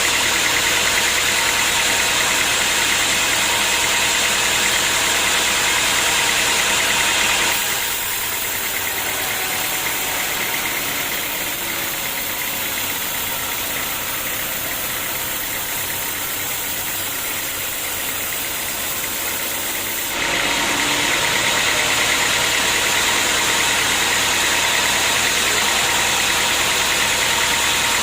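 Sawmill machinery running steadily: a loud, even machine drone with steady tones and hiss. It drops abruptly to a softer drone about a quarter of the way in and comes back up abruptly about two-thirds through.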